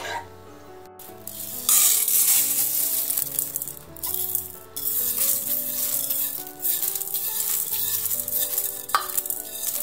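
Wet mung beans pouring and sliding from a glass bowl into a stainless-steel pot: a loud, dense rattling hiss that starts about two seconds in and pauses briefly partway through.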